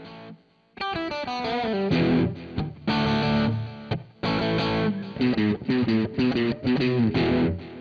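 Electric guitar, a Fender Deluxe Players Stratocaster with Noiseless single-coil pickups, played through an overdrive: a fast run of single notes about a second in, then riffs and chords. It rings out and stops near the end.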